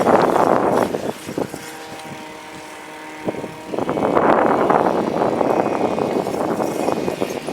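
Wind rushing over the microphone of a bicycle being ridden fast, in two loud surges: one dying away about a second in, the other building about four seconds in and lasting almost to the end. A faint steady hum runs underneath.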